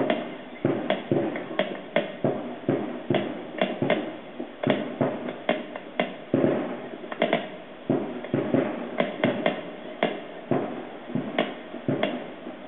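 Fireworks bursting in quick, irregular succession, several sharp bangs a second with a short echo after each, heard through a television's speaker.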